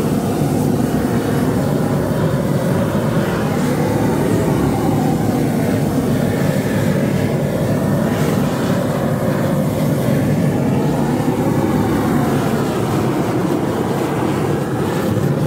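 A small handheld propane roofing torch burning with a steady rushing noise as its flame heats torch-down roofing membrane to melt it and stick a lifted flap back down.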